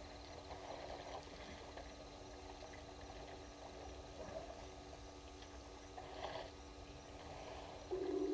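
Faint splashing and pouring of water from a herd of African elephants drinking at a waterhole, over a steady low hum. Near the end a loud, low hooting bird call begins.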